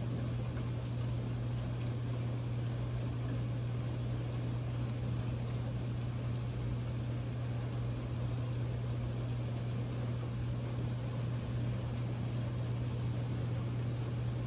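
Steady rain falling, an even hiss with a constant low hum underneath.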